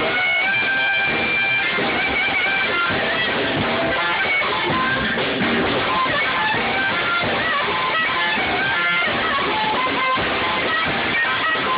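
Live band music with electric guitar prominent, picked up on a phone's microphone.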